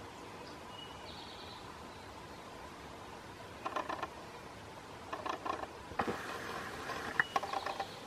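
Pileated woodpecker pecking and chiseling into a soft, rotting tree stump as it digs for beetle grubs: short bursts of rapid taps in the second half, with one sharper single knock among them.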